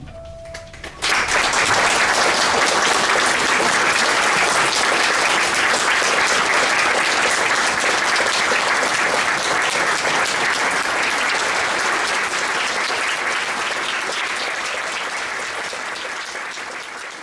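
An audience breaks into applause about a second in, dense and steady, easing off slightly near the end. A held musical note fades out just before the clapping starts.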